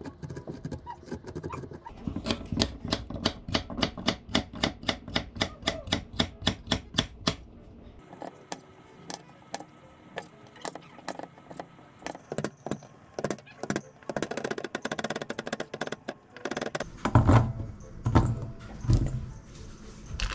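Chef's knife cutting vegetables on a wooden cutting board: a quick, even run of cuts at about five a second, then slower, irregular cuts, with a few heavier thumps near the end. Soft background music underneath.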